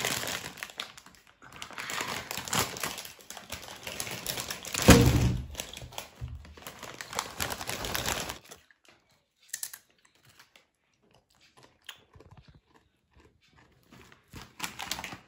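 Plastic crisp bag (Chio Tortillas) crinkling as it is pulled open and handled, with a deep thump about five seconds in. It then falls almost silent, with a few faint clicks.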